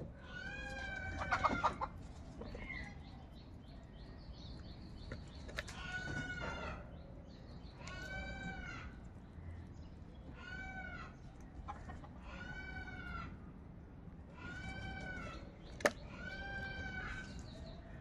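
House crows cawing repeatedly, one harsh arched caw about every two seconds. A sharp click stands out near the end.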